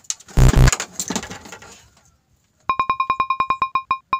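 Fishing reel clicking: a fast, even run of short, bell-like ticks that starts a little over halfway through and begins to spread out near the end. Before it come two loud bumps and some rustling as the rods are handled.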